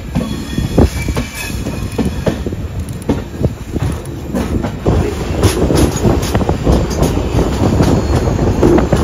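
Passenger train running on the rails, heard from on board, with the wheels clacking steadily over rail joints and a faint wheel squeal in the first few seconds.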